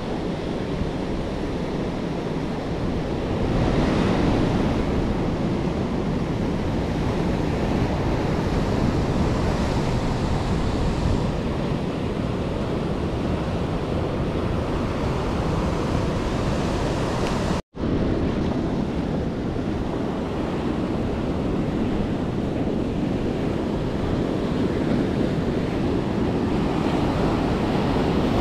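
Ocean surf breaking and washing on the beach, a steady rush that swells a few seconds in and again near the end, with wind buffeting the microphone. The sound cuts out for a split second about two-thirds of the way through.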